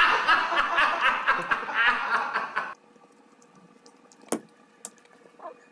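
A man laughing hard in rapid, repeated bursts, which cuts off abruptly near the end of the first three seconds. Afterwards it is quiet but for two short clicks.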